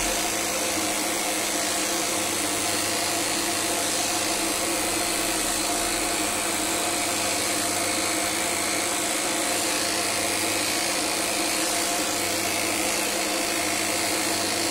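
Electric dog-grooming clippers with a comb attachment running steadily as they trim through a dog's coat: an even motor whir with a hiss over it.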